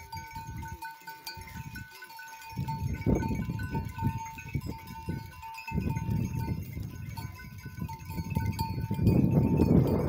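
A herd of goats bleating now and then, with the rustle and shuffle of the moving herd, over a steady pulsing high tone. The herd noise grows louder near the end.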